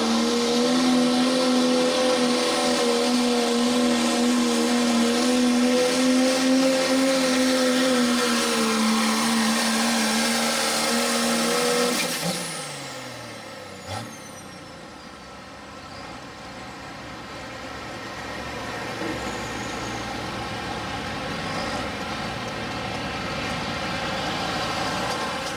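Pro Stock Diesel four-wheel-drive Dodge Ram pickup pulling a sled at full throttle, its diesel engine holding a steady high note that sags slightly late in the run. About halfway through the power comes off and the engine winds down with a falling whine, then runs much quieter, with a single thump shortly after.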